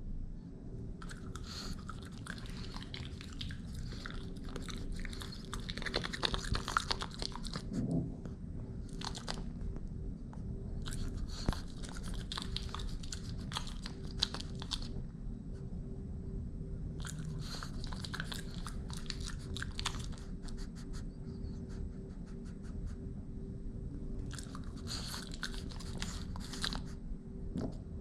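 French bulldog puppy chewing a treat, in spells of quick bites a few seconds long with short pauses between, over a steady low hum.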